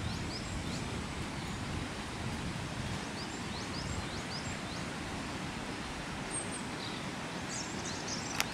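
Steady rush of a fast-flowing mountain river, with a small bird giving short high chirps in a few groups. A single click at the very end.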